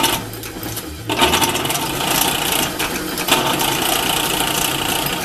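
South Bend 9-inch lathe running under power, spinning a shaft with a bevel gear on it, with a steady whir and a busy, irregular rattling clatter.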